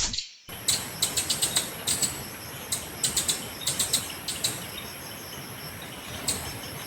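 Outdoor insect drone, a steady high-pitched tone, with repeated short sharp chirps in quick little clusters. It begins after a brief gap about half a second in.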